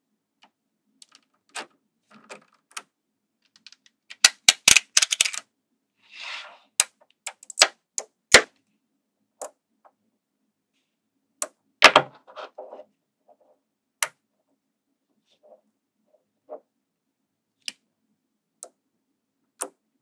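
Small magnetic balls clicking and snapping together as they are handled: scattered sharp clicks, with a quick rattling run of clicks about four to five seconds in and a loud cluster of clicks near twelve seconds.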